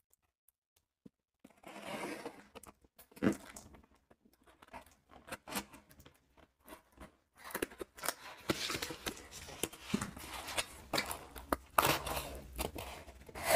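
A box cutter's blade slicing through packing tape on a cardboard parcel, then tape tearing and cardboard flaps being pulled open with crackling, scraping and clicks. The sounds begin about a second and a half in and grow busier from about halfway.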